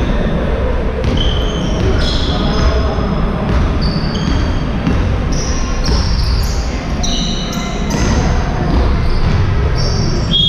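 Basketball shoes squeaking again and again on the sports-hall floor as players run and cut, over the dribbling and general noise of live play, echoing in the large hall.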